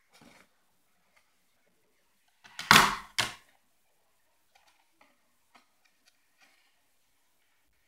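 Hands handling a cardboard box and wooden craft sticks on a wooden table. A loud rustling clatter in two quick parts comes about three seconds in, with a few faint taps and clicks before and after.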